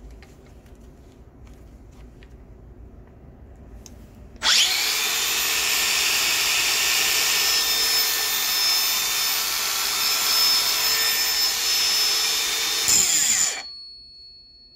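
Makita 18V cordless angle grinder fitted with a 125 mm toothed multi-cutter blade, switched on about four seconds in after some faint handling clicks. It spins freely at full speed with a steady high whine for about nine seconds, then is released and winds down quickly with falling pitch.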